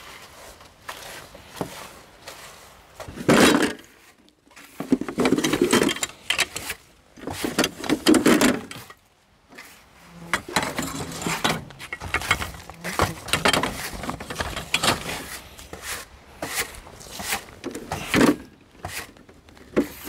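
Folding camping table with an aluminium frame being taken from its case and opened out: a run of clicks, knocks and rattles from the metal legs and panels, with louder handling noises about three, five and eight seconds in.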